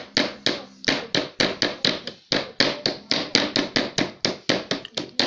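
Rapid, even knocking, about five or six raps a second.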